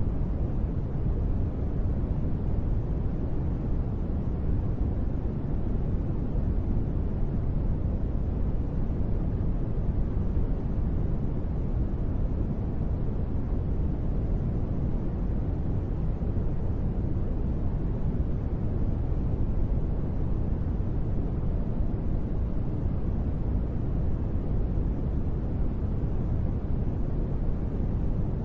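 Steady rain sound used as sleep white noise: a constant deep hiss, heaviest in the low end, with no separate drops or thunder standing out.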